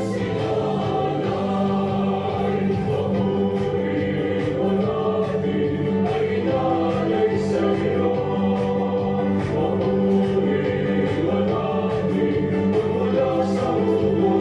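Background music with a choir singing, gospel-style, at a steady level.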